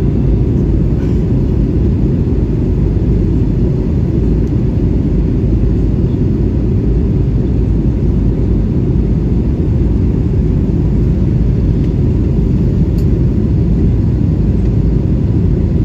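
Steady low rumble inside the cabin of an Airbus A320-232 in flight: the drone of airflow and its IAE V2500 engines, heard from a window seat while the airliner descends toward landing.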